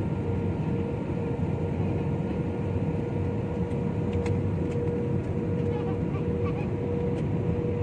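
Steady cabin noise of a Super Air Jet airliner descending to land: the jet engines and airflow make an even low rumble with a steady whine on top.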